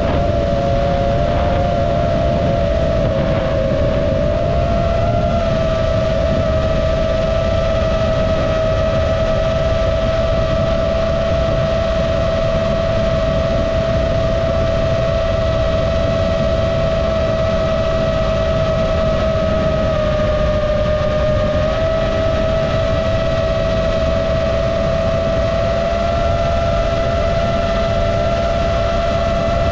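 FPV quadcopter's motors and propellers whining at a steady pitch in cruise, with wind rushing over the onboard microphone. The pitch dips briefly about two-thirds of the way through, then comes back up.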